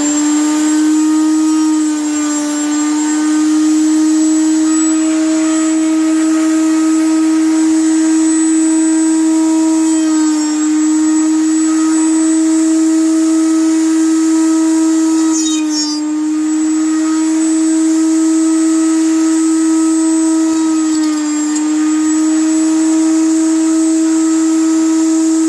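Router motor in a router table spinning a 2-inch cutting bit at full speed, a loud steady whine. Its pitch sags slightly a few times as the bit takes a half-inch cut in door frame stock.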